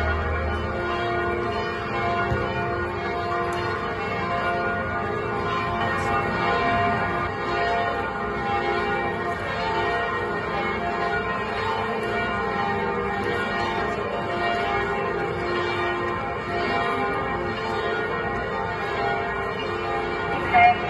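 Church bells ringing in a continuous peal, several bells striking and ringing on over one another.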